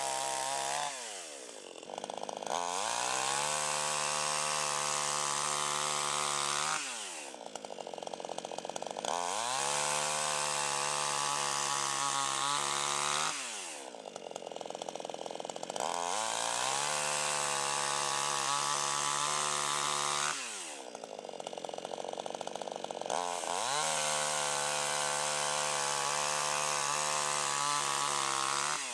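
CD52H chainsaw cutting through a fallen coconut tree trunk. It is run at full throttle for several seconds at a time, then eased off so the engine note falls to a lower speed before revving up again, about four times.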